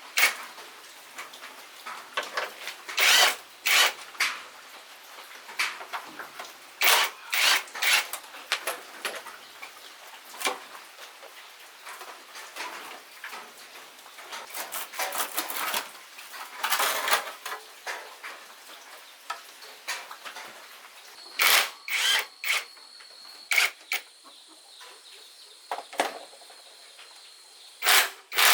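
Irregular clinks, knocks and scrapes of hand tools working on metal motorcycle parts, with sharp knocks every second or so. A faint, steady high whine joins about three-quarters of the way through.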